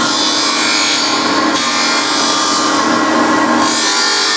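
Surface grinder's abrasive wheel grinding a metal workpiece, with sparks flying, as a steady hissing grind over the hum of the machine. The table carries the work back and forth under the wheel, and the grinding noise shifts about a second and a half in and again near the end.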